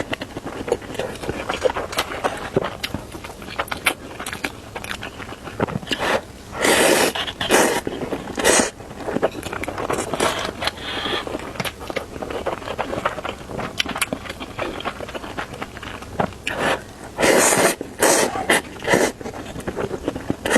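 Instant noodles being slurped and chewed into a close microphone. A few loud slurps come in a bunch about a third of the way through and again near the end, with wet chewing and smacking between.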